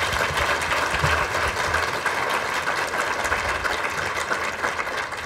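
Audience applauding steadily, a dense run of many hand claps.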